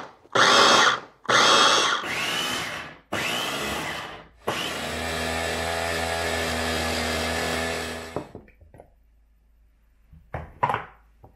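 Electric mini food chopper pureeing chopped onion, garlic and ginger into a paste: three short pulses of the motor, then a steady run of about four seconds that stops suddenly. A few light knocks follow near the end.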